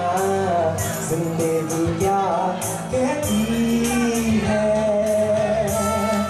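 A man singing a song through a handheld microphone and PA over backing music with a steady percussion beat.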